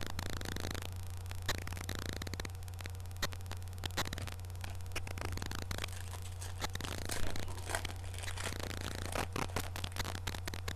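Crinkling and scraping of a 2007-08 SPX basketball card pack and its cards being handled and torn open, with many small irregular clicks, over a steady low hum.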